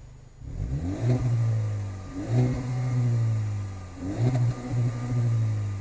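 Turbocharged four-cylinder hot-hatch engine blipped three times from idle through its exhaust. Each rev climbs quickly, holds a steady high note for about a second, then drops back.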